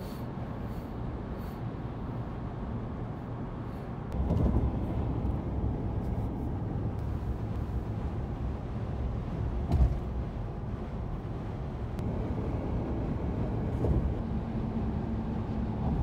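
Steady road and engine noise of a moving car heard from inside the cabin at highway speed, a low rumble that gets louder about four seconds in. A brief low thump comes about ten seconds in.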